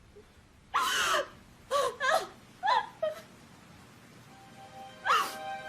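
A woman's voice crying out in a series of short, high wails that fall in pitch, with a steady held music tone coming in near the end.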